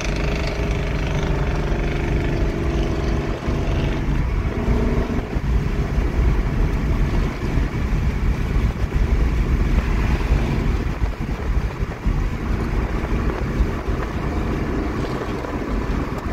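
Ford 3rd-gen Coyote 5.0 V8 in an S197 Mustang running at steady cruise, heard from inside the cabin over road and wind noise. The engine's tone is clearest for the first few seconds, then settles into a steady rumble.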